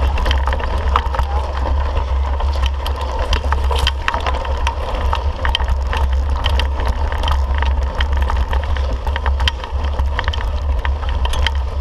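Mountain bike ridden over rocky dirt singletrack, its frame and drivetrain clattering: a steady low rumble with frequent sharp clicks and rattles from the bumps.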